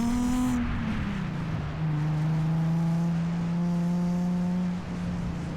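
Nissan 350Z's V6 engine revving up to a peak about half a second in, dropping back, then holding steady revs under load, with a brief dip near the end.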